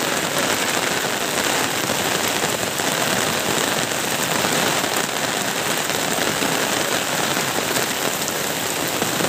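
Steady rain falling, a dense even hiss with no breaks.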